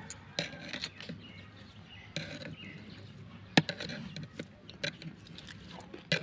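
Scattered sharp clicks and crunches close to the microphone as a piece of raw, sour fruit is bitten into and chewed, with one louder click about three and a half seconds in.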